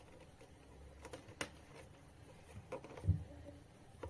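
Faint handling noises: light clicks and taps as a thin cable and small plastic fittings are handled on a tiled floor, with a soft low thump about three seconds in.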